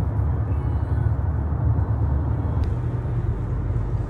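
Steady road noise heard from inside a moving car's cabin: a low rumble of engine and tyres, with a light hiss from tyres on a wet road.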